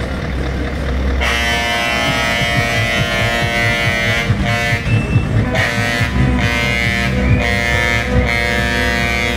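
A truck's musical air horn starts about a second in and plays a tune of long held notes that change pitch every second or so, over a low rumble.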